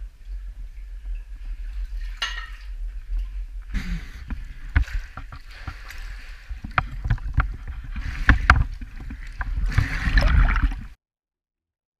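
Water splashing and sloshing as a caver wades and pushes through a flooded cave passage, with a low rumble and several sharp knocks of gear or the camera against rock. The splashing is heaviest near the end and cuts off suddenly about eleven seconds in.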